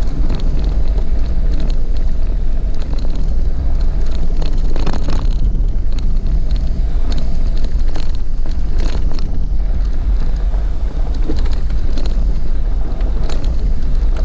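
A vehicle driving on a rough dirt road: a steady loud low rumble of tyres and engine, with scattered knocks and rattles from bumps and stones.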